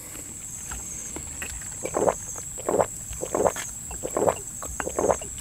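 Water being gulped from a plastic bottle: a run of short swallows, one every half second or so, beginning about two seconds in.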